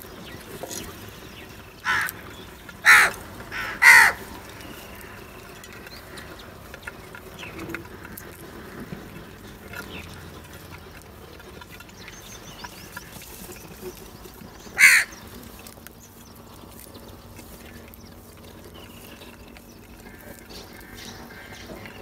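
House crows cawing: three harsh caws in quick succession about two to four seconds in, then a single caw about two-thirds of the way through.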